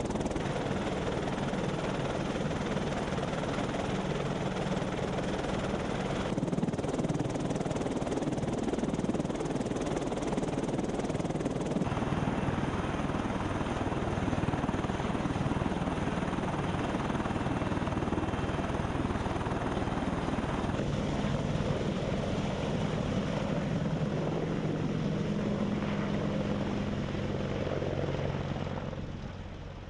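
AH-64D Apache Longbow attack helicopter running, its twin turboshaft engines and rotors making a steady, dense noise. The sound changes abruptly about six and twelve seconds in and fades near the end.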